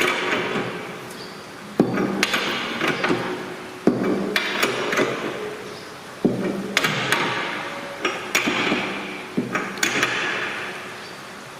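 Steel spanner working an axle nut tight: a sharp metallic clank about every two seconds, each followed by a short run of smaller clicks and knocks.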